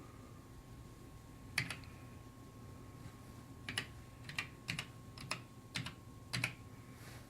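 Keys being typed on a computer keyboard: one click, then a run of about ten irregular clicks a little past halfway, typical of entering text for a marking job. A faint steady high whine runs underneath.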